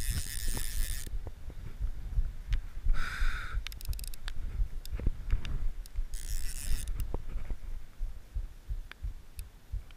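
Three short rattling buzzes of a click-pawl fly reel as line is pulled off it: one near the start, one about three seconds in and one about six seconds in. Irregular dull thumps and knocks of handling close to the microphone run underneath.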